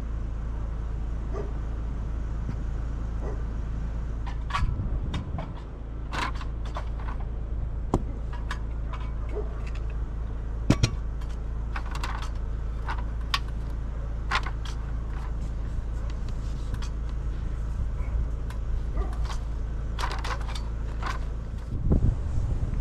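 Scattered sharp clicks and knocks of hardware being handled, over a steady low rumble.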